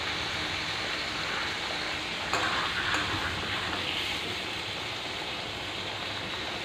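Mixed vegetables sizzling in hot oil in a steel kadai, a steady frying hiss, with a spatula stirring them about two seconds in.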